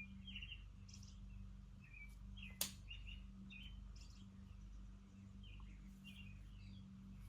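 Faint birds chirping from outside, short calls scattered throughout, over a steady low hum, with one sharp click about two and a half seconds in.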